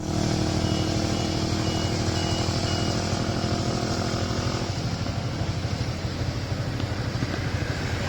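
Sumitomo 200 excavator's diesel engine running steadily, with five short high beeps from a warning beeper, about two a second, in the first three seconds. A little before five seconds in, part of the engine's higher note drops away while it keeps running.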